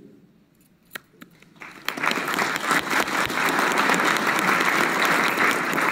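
Audience applauding: a few scattered claps about a second in, swelling into full, steady applause about two seconds in.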